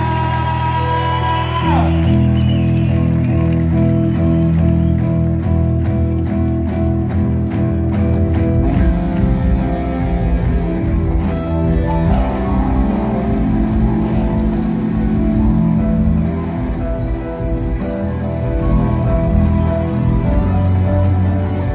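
Live band music played loud through a concert PA: guitar and other plucked strings over bass. A held high note slides away about two seconds in, and a fuller beat comes in a few seconds later.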